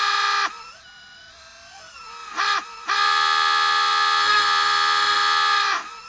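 Film dialogue from a Toy Story clip slowed almost to a standstill in the AudioStretch app, so that a single syllable is frozen into a steady held note. The note breaks off about half a second in to faint wavering sounds and a short blip, then returns for about three seconds before dying away near the end.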